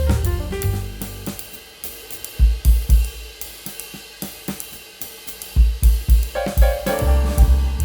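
Background music: a drum kit with cymbals and hi-hat keeping a steady beat, the bass and melody dropping out for a few seconds in the middle and returning near the end.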